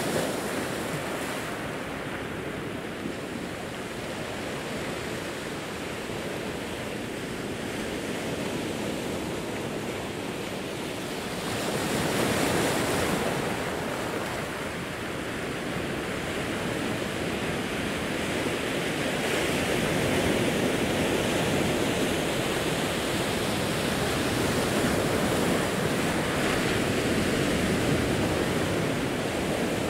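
Ocean surf breaking and washing over a rocky shore: a steady rush of water that swells about twelve seconds in and builds again from about twenty seconds on.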